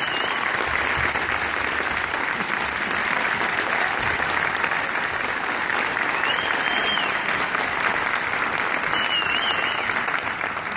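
Audience applauding steadily, with a few brief high wavering tones above the clapping, about two-thirds of the way in and near the end.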